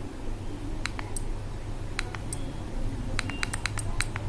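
Small buttons on a Noise Play action camera clicking as they are pressed to scroll through saved videos: scattered sharp clicks, then a quicker run of about eight near the end, over a low steady hum.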